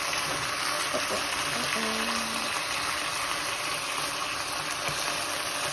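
Food sizzling steadily in a hot frying pan as it cooks.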